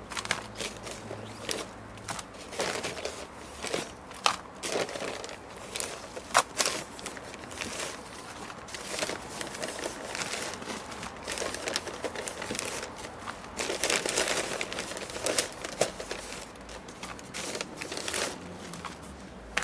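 Plastic compost bags crinkling and rustling as a gloved hand digs and scoops potting compost out of them, with irregular sharp crackles and handfuls of compost dropping into a terracotta pot.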